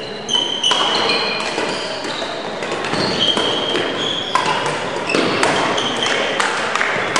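Badminton play in an echoing sports hall: sports shoes squeaking on the hall floor many times over, with sharp racket strikes on shuttlecocks from this and neighbouring courts, and faint voices in the background.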